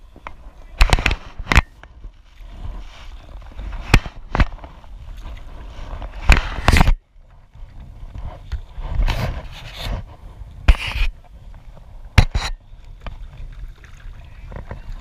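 Paddling a stand-up paddleboard: irregular sharp knocks and splashes from the paddle and board, a few seconds apart, over a low steady rumble.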